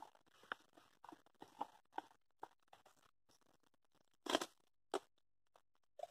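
Boilies rustling and clicking as they are scooped into a baiting catapult's pouch, then one sharp snap as the catapult is fired about four seconds in, with a second, shorter snap just before five seconds.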